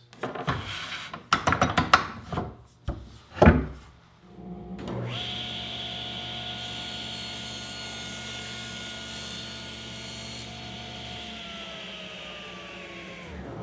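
A few knocks and rubs from handling plywood. Then, about four and a half seconds in, a table saw starts up and rips a strip off a sheet of quarter-inch plywood for several seconds. It is switched off near the end, and its blade winds down with a falling whine.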